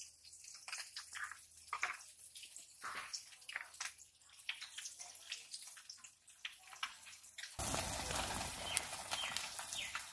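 Light clicks and taps of a spoon on a steel bowl and peas shifting as turmeric and salt are added to shelled green peas. About three-quarters of the way in, a steady hiss starts suddenly and covers them.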